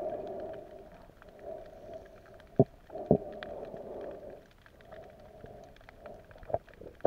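Muffled underwater sound picked up by a hand-held camera in its waterproof housing: a low rushing that swells and fades, a scatter of faint crackling clicks, and a few sharp knocks on the housing, the loudest about two and a half seconds in.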